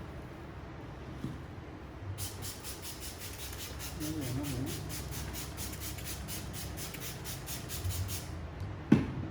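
Barber's hands working rapidly and rhythmically over the head in a massage, about four soft swishing strokes a second for some six seconds. A single sharp crack follows near the end and is the loudest sound.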